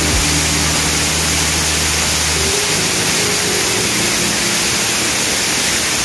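Waterfall cascading down a stepped rock face, heard from its base: a loud, steady rush of falling water and spray.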